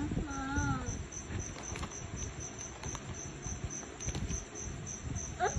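An insect chirping steadily, a high pulsing trill at about four pulses a second, with a child's short voiced sound near the start.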